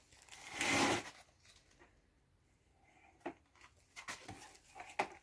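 A wet splat of watery clay slurry (Güsse) thrown against an adobe wall, one short burst about a second in, followed by a few faint knocks and scrapes.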